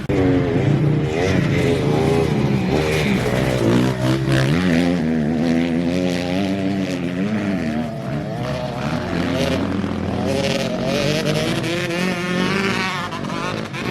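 Motocross dirt bikes revving around a track, the engine pitch rising and falling over and over as they accelerate and shift, with more than one bike heard at once.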